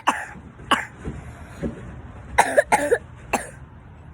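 A person coughing in short, sharp fits: a couple of coughs at the start and another just before a second, then a quick run of four or five coughs about two and a half seconds in. It is a cough the uploader puts down to allergy season.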